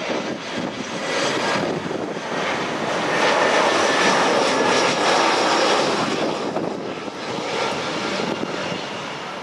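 Airbus A320-214's CFM56-5B turbofan engines heard from below on final approach: a steady jet rumble with a thin whine in it. It swells to its loudest about four seconds in as the airliner passes, then fades.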